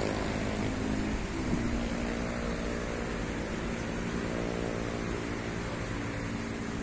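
Road traffic from a busy highway: a steady rush of passing vehicles with an engine hum running through it, and wind buffeting the microphone.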